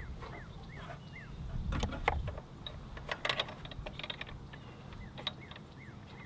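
Light metal clicks and clinks of a spark plug socket being fitted over a scooter's spark plug, in two clusters about two and three-to-four seconds in. Behind them, a short high chirp repeats about twice a second at the start and again near the end.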